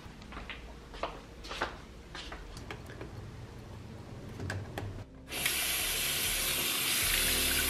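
Faint clicks and handling rustles, among them a wall light switch being pressed, then about five seconds in a bathroom faucet comes on suddenly and water runs steadily into the sink.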